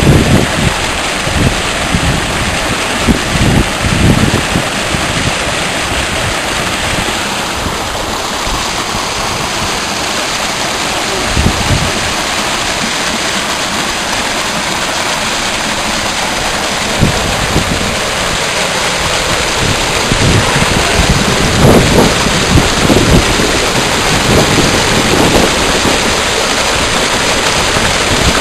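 A mountain river rushing steadily, with wind buffeting the microphone in gusts, strongest near the start and again in the last third.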